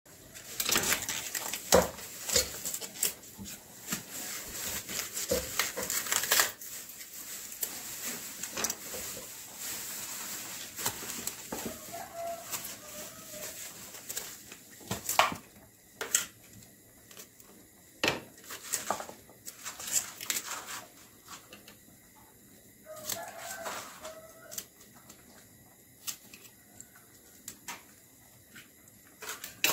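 A whole cauliflower being broken apart by hand on a plastic cutting board: a dense crunching and tearing of leaves for the first several seconds, then scattered sharp snaps and knocks as florets come off. A bird calls faintly twice, about twelve and twenty-three seconds in.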